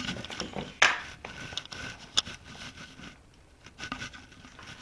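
Handling noise: a sharp knock a little under a second in, then a couple of lighter clicks and faint rubbing as things are moved about and set down.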